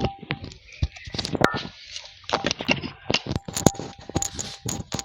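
Irregular run of sharp clicks and light metallic clinks, a few ringing briefly, from handling a bike horn and the wires being hooked up to it.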